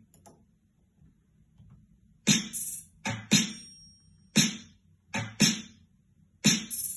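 Drum track of a hip-hop beat playing back from production software: sharp snare hits, with an offbeat second snare and a small ringing 'ding' percussion after some of them, starting about two seconds in and repeating in a pattern of about four seconds.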